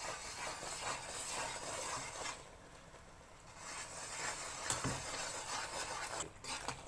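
A metal spoon stirs and scrapes through hot sugar and coconut-milk syrup in a nonstick pan, with a faint sizzle from the bubbling syrup. The syrup is being cooked on low heat to dissolve the last sugar lumps. The stirring eases off briefly around the middle and gives one soft knock against the pan a little later.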